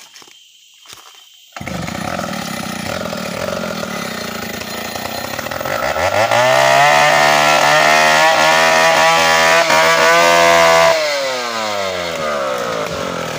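Stihl 070 two-stroke chainsaw: the engine sets in suddenly at a steady lower speed, then revs up about six seconds in and runs loud at full throttle, cutting into the ulin (Borneo ironwood) trunk. About two seconds before the end it drops back to the lower speed, its pitch falling.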